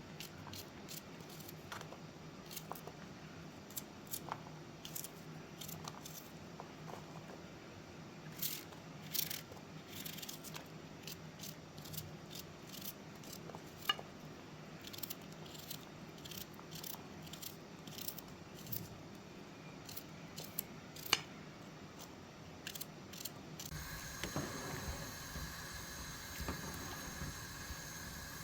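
Scattered light clicks and taps of cooking work, irregular and a few to the second, over a low steady background. About 24 s in, the background changes suddenly to a steady hiss.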